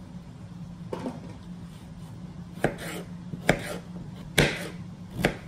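A chef's knife slicing through yellow squash and knocking on a plastic cutting board: five separate strokes about a second apart, the fourth the loudest, over a steady low hum.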